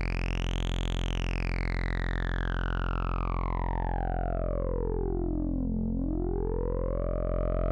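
iAbyssal iOS synthesizer app playing a low, steady oscillator drone through its resonant low-pass filter while the cutoff sweeps. The whistling resonant peak rises to a high point about a second in, glides down to a deep low near six seconds, then climbs again near the end.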